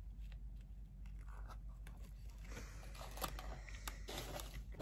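Quiet handling noise: a few light clicks and rustles, then about two and a half seconds in a hand rummaging through packing peanuts in a cardboard box, a scraping, crunchy rustle.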